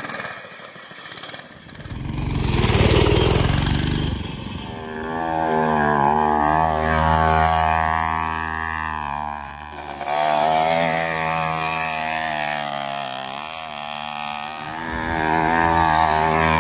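Small two-stroke engine of an E-Ton TXL 50 mini ATV revving up and down as it rides a rough dirt track, easing off the throttle briefly a couple of times. Before the engine note comes in, about two seconds of rough rushing noise.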